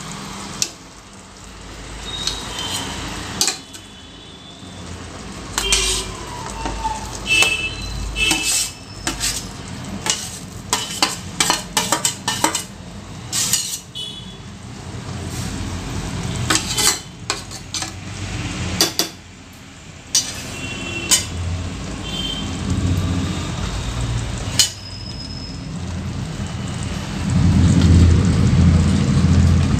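A spoon and plate clinking, knocking and scraping against the rim of an aluminium pressure cooker as cooked rice is spooned and tipped into it, the sharp clinks coming in irregular clusters. A louder low rumble comes near the end.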